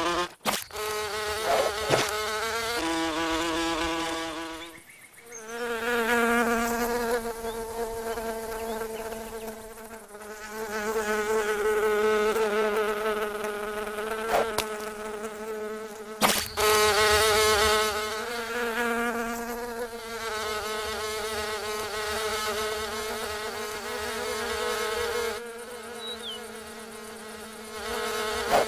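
Buzzing wings of flying cartoon ladybugs: several overlapping insect buzzes with a wavering pitch, swelling and fading. Two sharp knocks are also heard, one near the start and one about halfway through.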